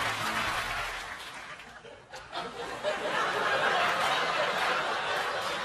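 Studio audience laughing. It fades away about two seconds in, then swells again.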